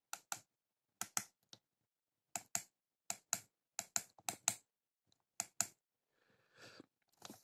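Keypad buttons of a Satlink WS-6906 handheld satellite finder being pressed to key in digits, each press a quick pair of clicks, about eight presses at an uneven pace.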